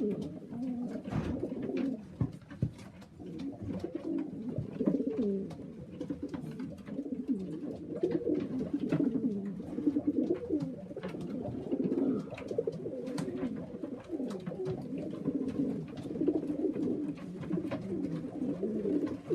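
Domestic pigeons cooing, many low coos overlapping without a break, with scattered light clicks and taps among them.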